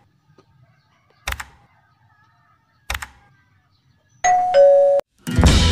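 Subscribe-button animation sound effects: two sharp clicks about a second and a half apart, then a louder two-note falling ding-dong chime, the notification-bell sound. Guitar music starts just before the end.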